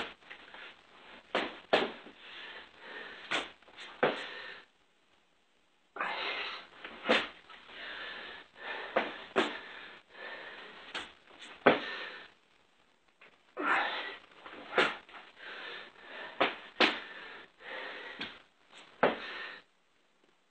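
A person breathing hard and wheezing from exertion, with sharp knocks and thumps scattered through it, in three long spells broken by two short silences.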